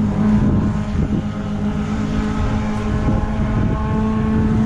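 A steady engine drone holding one pitch, with wind rumbling on the microphone.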